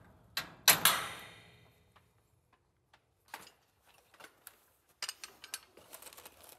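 Two sharp hammer blows on the steel garage door vertical track, about half a second apart near the start, ringing briefly, as the knockout in the track's perforated end is knocked out. After them come faint clicks and light rattles of small metal parts being handled.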